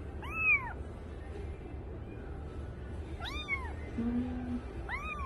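A young kitten meowing three times: short, high mews that rise and fall in pitch, a few seconds apart, the last near the end.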